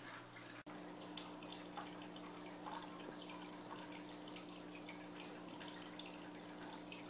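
Water dripping and trickling in a paludarium, with many small irregular splashes over a steady low hum. The sound cuts out for a split second less than a second in.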